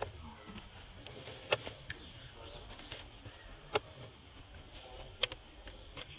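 Dry fallen leaves crackling in three sharp clicks about two seconds apart as a macaque handles the leaf litter, over faint outdoor background.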